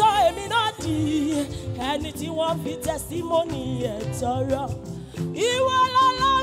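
Gospel choir worship song: a woman's lead voice sings over sustained backing chords, then holds one long, wavering high note near the end.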